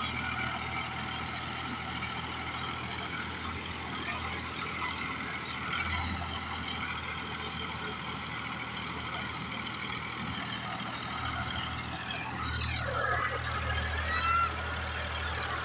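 Farm tractor's diesel engine running steadily as it pulls a tillage implement through the field.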